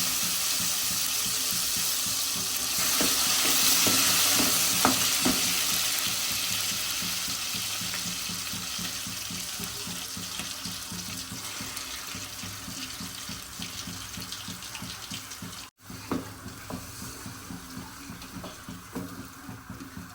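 Food sizzling in hot oil in a pan. The hiss swells about three seconds in, then slowly dies down.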